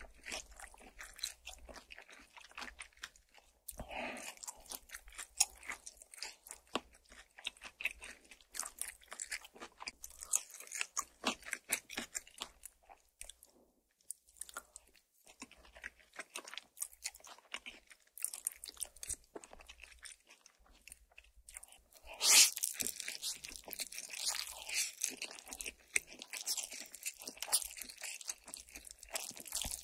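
Close-miked eating sounds: chewing and crunching of air-fried makchang and garlic, with many small wet mouth clicks. About 22 seconds in it turns louder and busier as spicy Buldak fire noodles are slurped and chewed.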